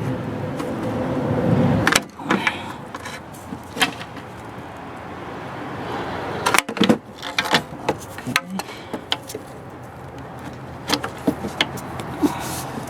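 An oil filter wrench being worked on a car's oil filter to loosen it. A rushing noise builds for about two seconds and cuts off suddenly, then come scattered metallic clicks and knocks, bunched a little past the middle.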